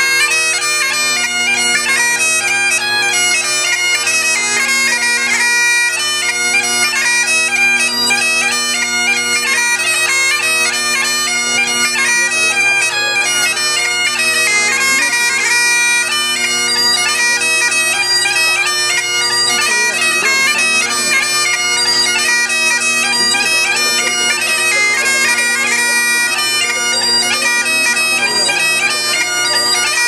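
Bagpipes playing a tune, with the chanter's melody moving from note to note over steady, unbroken drones.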